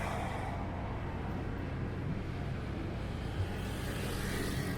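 Heritage tram running along its rails: a steady rumble with one brief low knock about three and a half seconds in.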